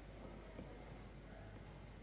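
Near silence: faint room tone with a steady low hum, and one faint click about half a second in.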